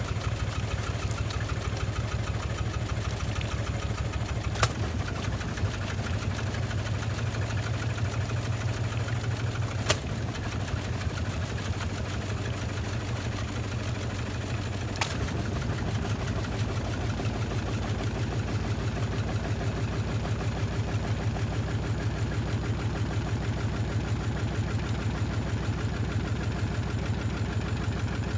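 Washing machine on its spin cycle, loaded with wet towels, running with a steady low hum and fast, even pulsing. Three sharp knocks come about five, ten and fifteen seconds in.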